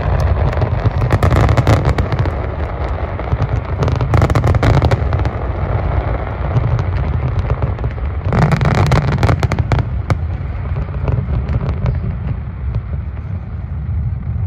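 Aerial fireworks display: shells bursting with a low rumble and dense crackling. The crackling surges about a second in, around four seconds and again from about eight to ten seconds, then thins out near the end.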